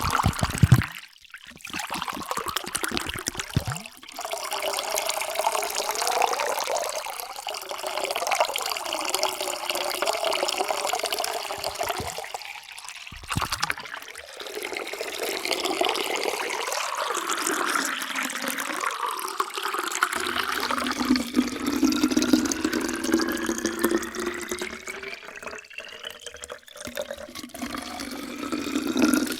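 Water pouring into drinking vessels, in several separate pours with short breaks between them. In the last pour the pitch rises steadily as the vessel fills.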